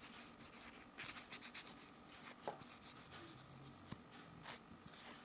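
Faint rubbing of a wipe over a cured gel top coat on a nail tip, wiping off the sticky layer left after curing, with a couple of small ticks.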